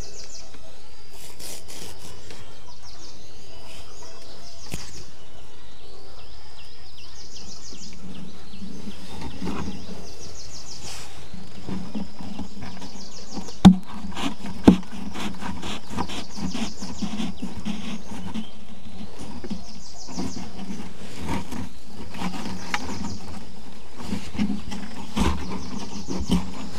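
Short, rapidly pulsed high chirping calls from a small animal, repeated about once a second over steady outdoor background noise. Two sharp knocks come about halfway through.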